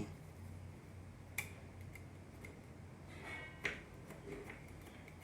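Small repair tools handled on the bench: two light clicks, the second just after a brief scrape, over a steady low electrical hum.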